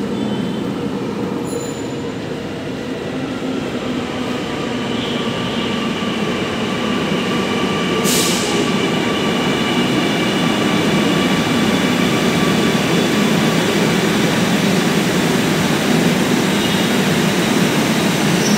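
An Alstom Metropolis electric metro train pulls into the platform. Its rumble grows louder as it nears, with a high steady whine over it, and there is a brief hiss about eight seconds in.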